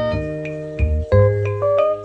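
Background music: a tune of pitched notes over a bass line, the notes changing about twice a second.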